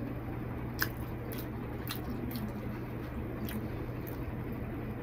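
Close-up eating sounds: a mouthful of rice and curry being chewed with a few sharp, wet mouth clicks, and fingers squishing rice on a plate, over a steady low hum.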